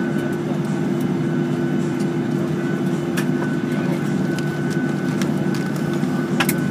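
Cabin noise of a Boeing 737-800 taxiing, its CFM56 engines at idle: a steady hum with a faint steady high whine above it. A few light clicks and rattles come through, the sharpest pair near the end.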